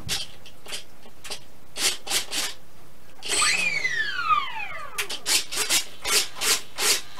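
Servos of a Hobbyzone Carbon Cub foam RC plane buzzing in short bursts as its control surfaces are worked from the transmitter, a few bursts a second near the end. Around the middle a whine falls steadily in pitch for about a second and a half.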